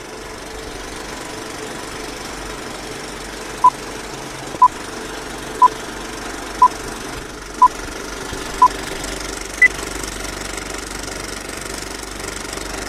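Old film projector running with a steady clatter and crackle, with countdown beeps about once a second: six at one pitch, then a final beep at a higher pitch.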